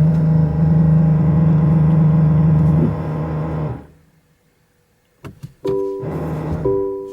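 New Toyota Prius making a loud, steady buzzing hum, the abnormal noise that the owner suspects comes from the brake system. The hum cuts off about four seconds in. A few clicks follow, then a pinging chime that repeats about once a second.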